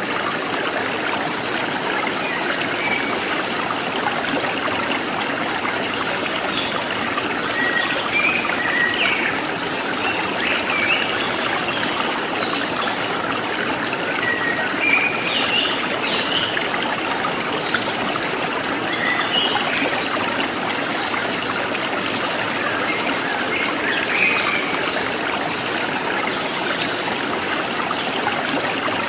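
Forest stream trickling and splashing steadily, with short bird chirps and calls scattered over it.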